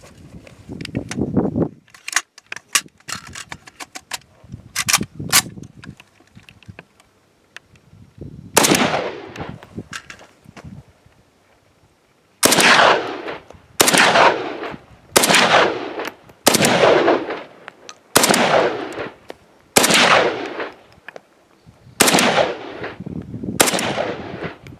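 AK-pattern rifle firing single shots. Sharper, shorter cracks are scattered through the first few seconds. A loud shot comes at about 8.5 s, and from about 12 s there is a steady string of shots roughly one and a half seconds apart, each ringing out and echoing for about a second.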